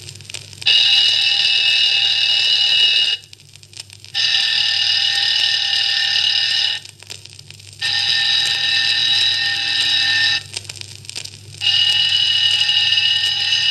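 Alarm clock ringing in four bursts of about two and a half seconds each, played back from a vinyl record through a portable record player's speaker. These are recordings of the same alarm clock at 1, 2, 4 and 10 metres inside a room, and the loudness hardly drops from one burst to the next because of the room's reverberation.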